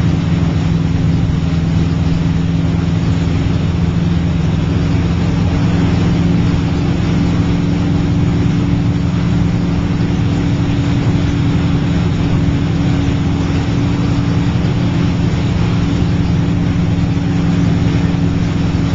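Wake boat's engine running at a steady surf speed, an even low hum, over the constant rushing wash of the churning wake.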